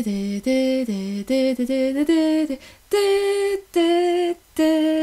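A woman singing a Christmas song solo and unaccompanied, in held steady notes grouped into short phrases with brief breaks between them.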